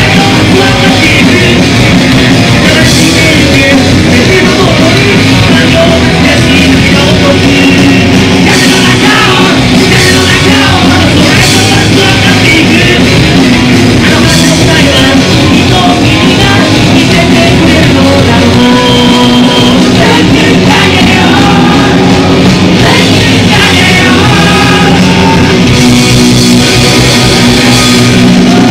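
Punk rock band playing live: distorted electric guitars, bass and drums with a lead vocalist singing, loud and dense, with no break.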